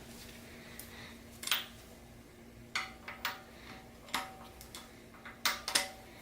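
Metal wrench and socket clinking on cylinder-head bolts during the 90-degree tightening turns: about seven sharp separate clinks, several with a brief metallic ring.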